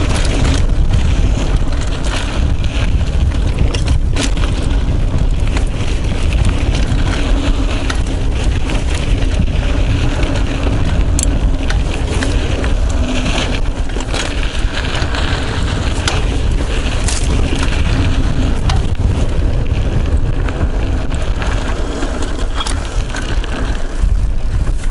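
Mountain bike riding fast downhill on a dirt trail, heard from a chest-mounted action camera: a steady loud rush of wind on the microphone and tyres on dirt, with scattered clicks and rattles from the bike.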